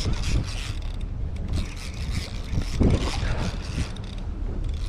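Shimano Ocea Jigger conventional jigging reel cranked to wind in a heavy fish, over a steady low rumble of wind on the microphone and the boat.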